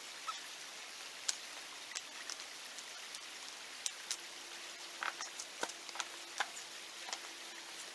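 Faint, irregular clicks and taps of rocks and gravel being shifted by hand, over a steady hiss.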